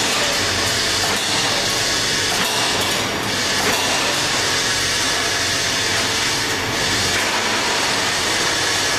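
Steady, loud machine noise from a CNC beam punching line for lorry chassis beams.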